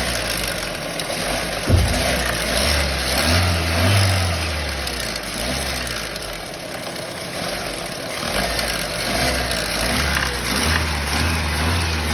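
Renault Mégane 3 TCe 115 petrol engine running, swelling a little twice, with one sharp knock about two seconds in. The engine noise is the one the seller puts down to the timing chain tensioner.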